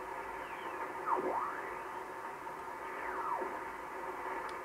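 Grundig Satellit 3400 Pro shortwave receiver hissing between stations. Whistles glide down and back up in pitch as the tuning passes across carriers, once about a second in and again around three seconds, with the BFO on.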